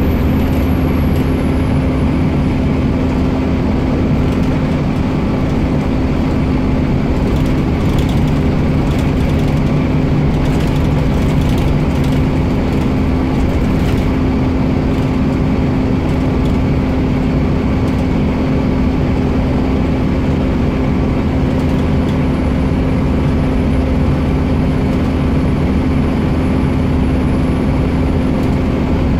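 Scania K230UB bus's diesel engine running steadily under way, heard from inside the saloon, with a dense low drone and a steady hum that holds one pitch. A scatter of light clicks and rattles comes in the middle.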